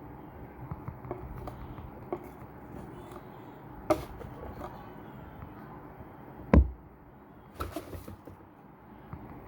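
Handling noise from unboxing a shoe box: light scattered knocks and rustles, a sharp tap about four seconds in, a heavier thump a little past halfway, then a short run of knocks.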